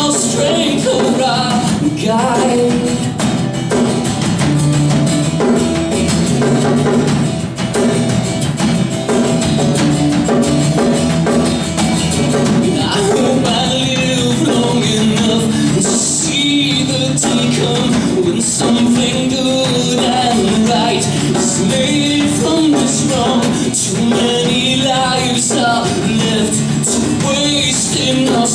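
Live song with strummed acoustic guitar and percussion keeping a steady beat.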